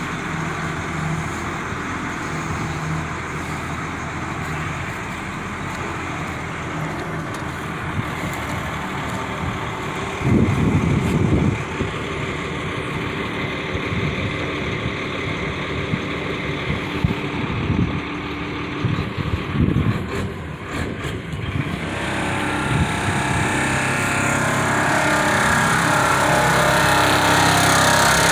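Cummins diesel engine of a Badger 670 mobile excavator running steadily, with a short louder surge about ten seconds in and the sound growing louder over the last few seconds.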